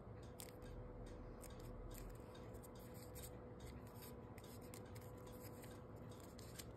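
Origami paper crinkling and rustling faintly as it is folded and creased by hand, in scattered small crackles over a faint steady hum.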